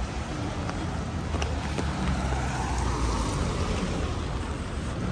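City traffic on wet streets in the rain: a steady low rumble of engines, with a car's tyres hissing on the wet road as it passes about halfway through.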